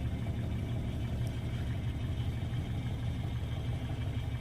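A vehicle engine idling steadily with an even low rumble.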